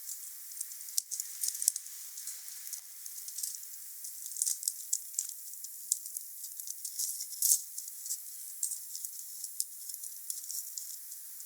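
Wood fire burning: irregular sharp crackles and pops over a steady hiss, with the loudest pop a little past the middle.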